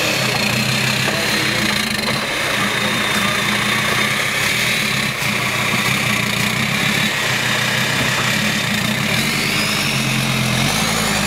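Off-road vehicle engine running steadily at low revs, with a high whine above it that climbs near the end.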